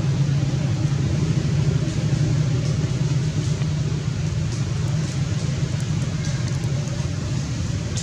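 Steady low engine rumble, unchanging throughout.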